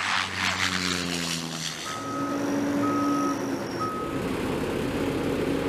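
Heavy vehicle's engine running with a backup alarm beeping three times, about a second apart, while it reverses.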